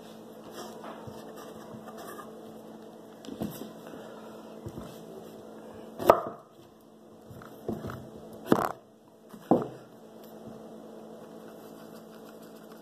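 Kitchen knife knocking on a wooden cutting board while trimming the ends off a cucumber: about six separate, unevenly spaced chops, the loudest about six seconds in. A steady low hum runs underneath.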